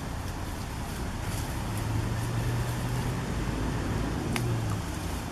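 A low, steady engine hum over a noisy outdoor background, swelling in the middle and dropping away near the end. Short crisp rustles of willow leaves and twigs come and go as goats pull at the branches, with one sharp snap about four seconds in.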